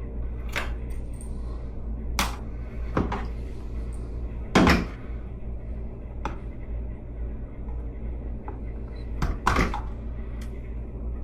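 Scattered knocks and clicks of backflow preventer parts being handled and fitted as a new seal goes on during reassembly, with the loudest knock about halfway through. A steady low hum runs underneath.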